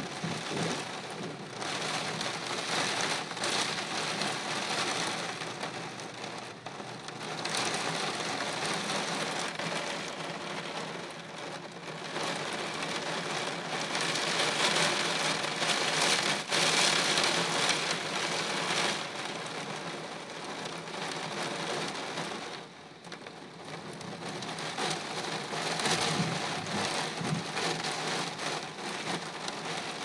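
Strong gusting wind with heavy rain: a steady rushing hiss that swells and eases. It is loudest about halfway through and drops briefly about three-quarters of the way in.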